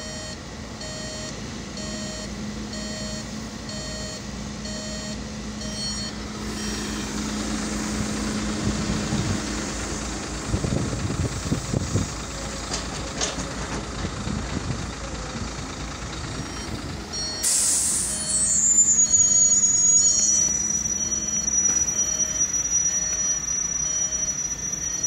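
Heavy truck's reversing alarm beeping about once a second over its running engine, heard from inside the cab. Midway the engine rumbles with a few low thumps. Then a sudden loud air hiss drops into a steady high whistle, and the beeping carries on.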